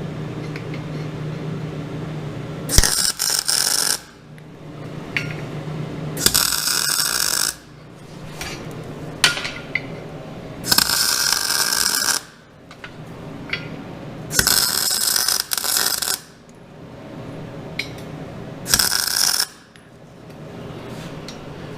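MIG welder laying five short tack welds on a steel frame, each a crackling burst of about a second, with a steady hum between the tacks.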